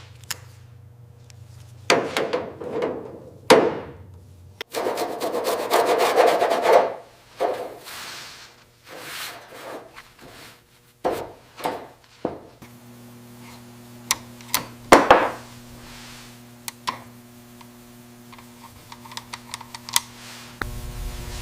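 Hand-work scraping and rubbing: irregular strokes, with one long scrape about five seconds in, scattered sharp clicks and taps, and a steady low hum underneath.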